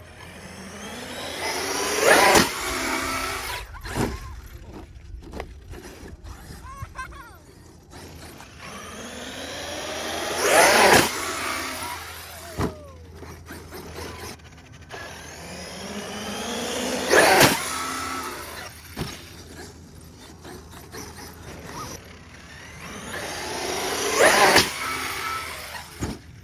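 Traxxas X-Maxx RC monster truck's brushless electric motor whining up in pitch as it accelerates, four times over, each run building to a loud peak and then fading. A sharp knock follows each peak.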